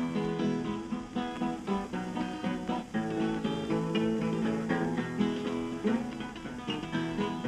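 Background music: an acoustic guitar playing a picked blues instrumental break between sung verses, several plucked notes a second.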